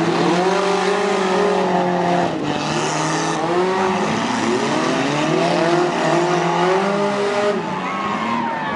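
Several compact cars' engines revving up and down over one another in a demolition derby, with a brief hiss about three seconds in.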